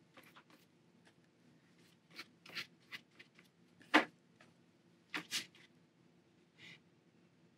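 Flat watercolor brush working paint, a string of short, faint scratchy strokes on the paper and in a metal palette tin, with a sharper click about four seconds in as the brush picks up paint from the palette.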